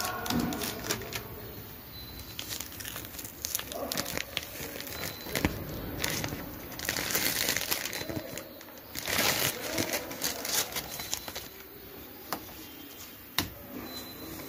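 Masking paper crinkling and rustling as it and masking tape are pulled away from a car's bumper and headlight, with small sharp clicks and louder bursts of crinkling about seven and nine seconds in.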